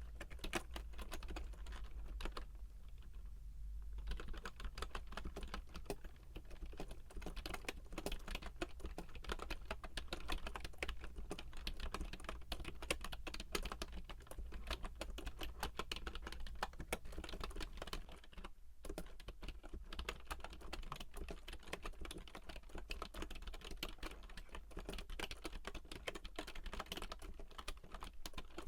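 Continuous typing on an Actto retro Bluetooth keyboard: a dense stream of key clicks, with a brief pause about eighteen seconds in.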